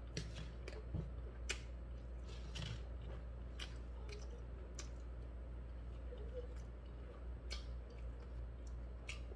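Chewing a mouthful of food with the mouth closed, with scattered short, soft wet clicks and smacks from the mouth.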